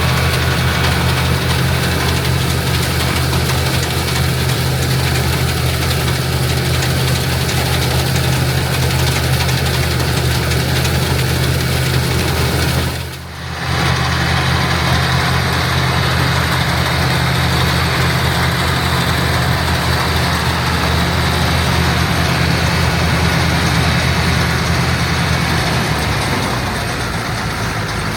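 International Harvester 684 tractor's engine running steadily while pulling and powering an International Harvester 82 pull-type combine harvesting oats, its threshing machinery adding a broad mechanical clatter over the engine's low hum. The sound dips briefly about halfway through, and the low hum weakens near the end.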